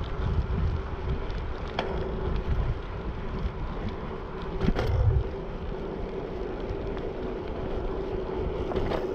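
Wind buffeting an action camera's microphone as a bicycle rolls along a paved path: a low rumbling haze under a steady hum, with a couple of light clicks and a louder gust about five seconds in.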